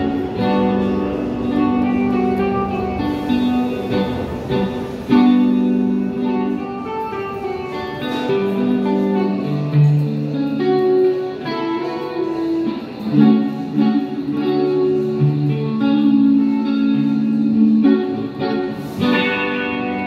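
Blue Fender Stratocaster electric guitar played solo through a small portable amplifier: a melodic lead line of single notes, many of them held and sustained.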